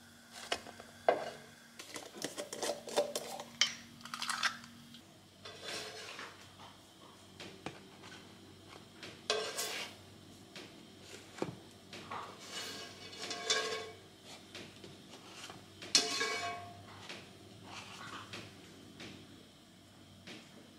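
Irregular clinks and clatters of kitchenware: a frying pan, spatula and table knife knocking against a ceramic plate as pancakes are served and spread is put on them.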